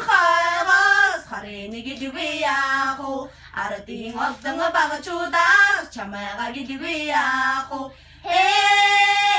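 Three women singing a Mongolian song together, unaccompanied, in phrases with short breaths between them; a long note is held near the end.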